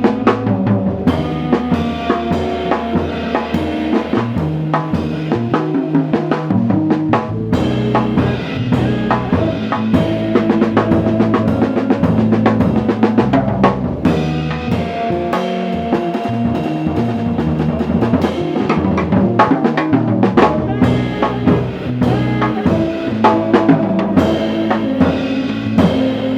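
Live jazz band playing, with the drum kit to the fore: busy drumming over bass and sustained instrument notes.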